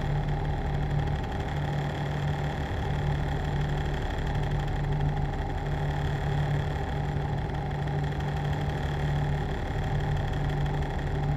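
A machine running steadily: a low hum that wavers slightly every second or two, with fainter steady whine tones above it.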